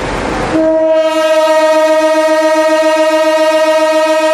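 Air horn of a CC 201 diesel locomotive sounding one long, steady blast, starting about half a second in.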